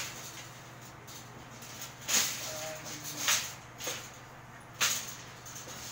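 Wire-mesh metal dog cage clanking and rattling as it is handled and shifted, a handful of sharp knocks and scrapes spread through the few seconds over a steady low hum.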